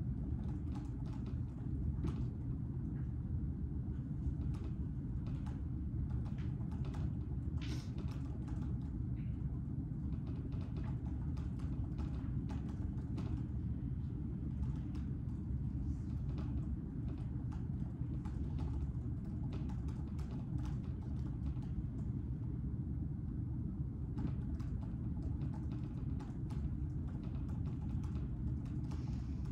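Steady low room rumble with many scattered small clicks spread irregularly through it.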